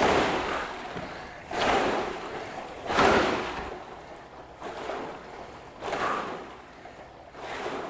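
Water rowing machines in use: the water in the flywheel tank swishes with each short, fast quarter- or half-slide stroke, a surge about every second and a half.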